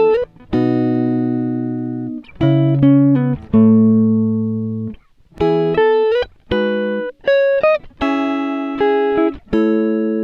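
Instrumental music of plucked string notes and chords, each struck and left ringing until it fades.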